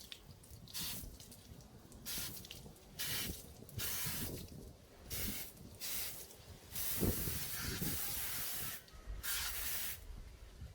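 Water spraying from a hose nozzle onto a wet dog's coat in repeated short bursts, starting and stopping about ten times, with one longer spray of nearly two seconds about seven seconds in.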